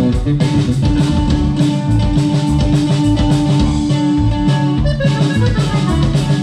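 Norteño band playing live: accordion melody with held notes over guitar, electric bass and a steady drum-kit beat.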